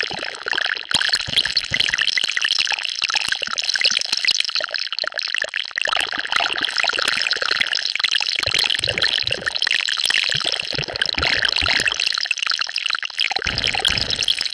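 Designed sci-fi "alien virus mutation" sound effect: a dense, continuous texture of many small crackles, with low swells rising under it about eight seconds in and again just before the end.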